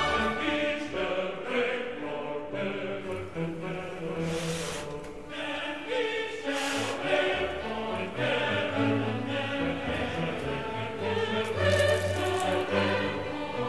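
Background music with layered, held notes.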